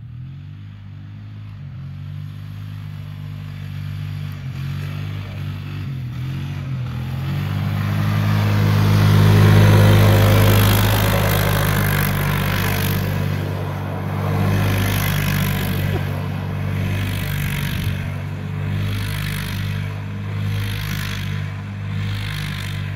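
ATV engine revving and held under throttle as the quad spins donuts and slides on snow-covered ice, its pitch rising and falling in the first several seconds and loudest about ten seconds in as it passes close. After that it runs on more steadily, with a pulsing hiss of the tyres throwing snow.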